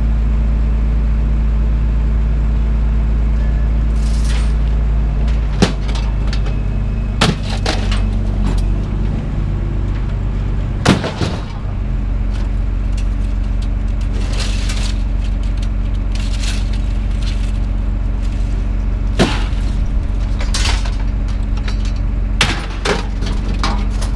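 Pieces of scrap iron being thrown off a trailer, landing with irregular metal clanks and bangs, the loudest about halfway through, over an engine running steadily at a low pitch.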